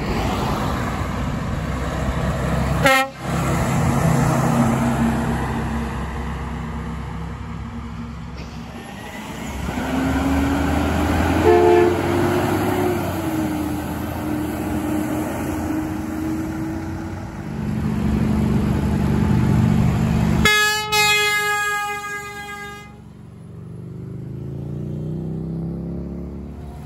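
Heavy diesel trucks passing and sounding air horns. A Mack MRU garbage truck's fouled Hadley H00640U air horn gives a low, wavering note that slides upward, as debris in a fouled horn does. Later another truck's air horn gives a loud, clear blast of about two seconds that cuts off suddenly, then a diesel engine's pitch rises as a truck pulls away.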